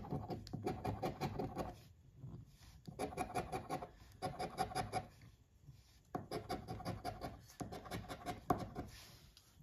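A coin scraping the coating off a paper scratch-off lottery ticket in rapid back-and-forth strokes, in several runs with short pauses between.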